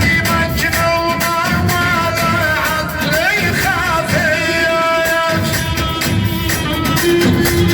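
Live Arabic band music: a male singer's melismatic melody over a steady, fast percussion beat.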